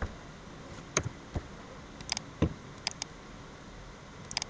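A handful of scattered single clicks and light knocks from a computer keyboard and mouse, some sharp and some with a dull low thump, a few of them in quick pairs.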